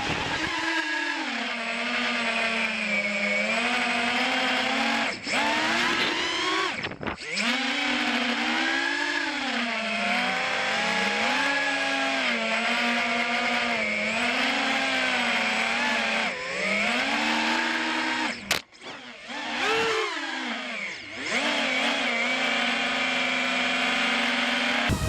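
Eachine Wizard X220 FPV quadcopter's brushless motors whining, the pitch rising and falling constantly with the throttle. The sound drops out briefly several times, with the longest break near two-thirds of the way through, as the throttle is chopped.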